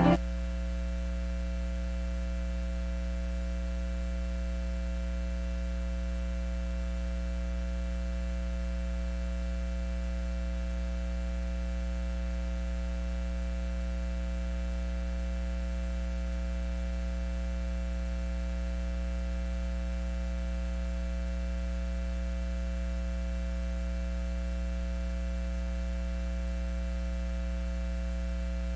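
Steady electrical mains hum with a buzzy edge, unchanging throughout. The last piano note cuts off right at the start.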